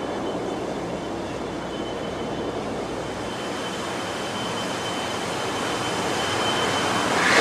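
Steady rushing noise of a steel-mill furnace tapping molten steel into a ladle, with a faint high steady whine that stops shortly before the end. The noise grows slightly louder toward the end.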